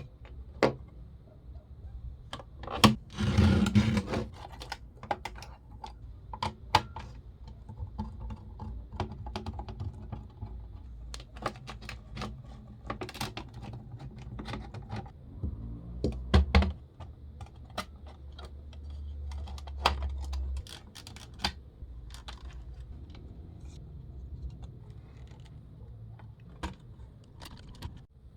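Clicks and light rattles of small hard parts being handled, with a short scraping rustle about three seconds in and a low steady hum from about 17 to 20 seconds.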